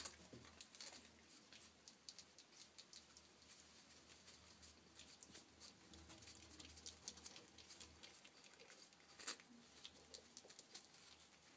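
Faint scratching and rustling as a Gambian pouched rat grapples with a bristled back-scrubber brush: quick, irregular ticks, with a sharper one about nine seconds in.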